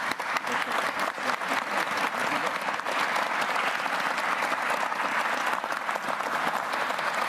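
Large seated audience applauding, many hands clapping together; it builds quickly in the first second and then holds steady.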